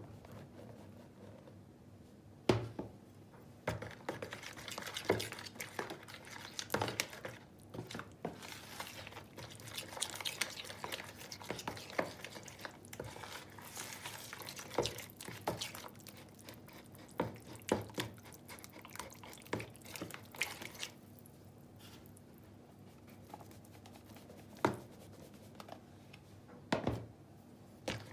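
Metal spoon stirring flour into a runny yeast batter in a clear bowl: irregular clinks and scrapes of the spoon against the bowl with wet stirring, easing off for a few seconds near the end before a few more taps.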